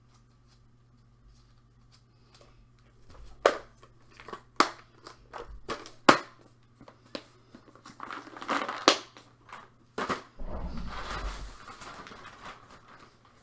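Small items and crinkly packaging being handled: sharp clicks and taps begin about three seconds in, then crinkling, and a longer rustle near the end.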